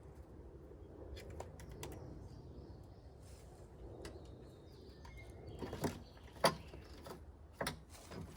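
Scattered light clicks and knocks of loose items being handled and rummaged through, louder about six seconds in, over a low steady background rumble.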